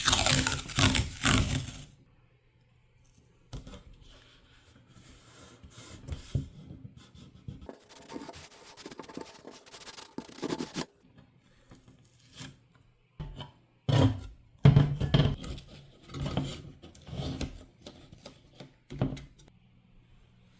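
Irregular scraping and rubbing strokes of hand work, loudest in the first two seconds and again in a run of bursts in the second half.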